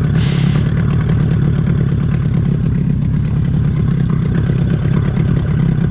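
Boat's outboard motor running steadily at low trolling speed, about 3 km/h, a constant low drone.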